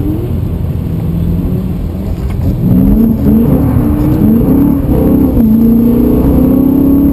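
BMW E92 M3's V8 heard from inside the cabin during a drift. About three seconds in, the revs begin rising and falling quickly as the rear wheels spin with the throttle worked, then they hold high near the end.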